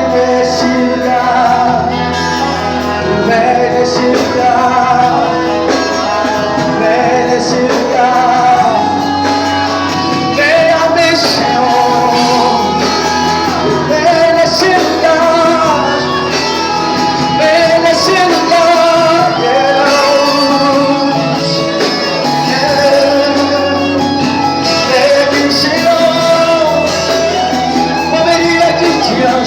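Christian worship song: voices singing a melody over steady instrumental accompaniment.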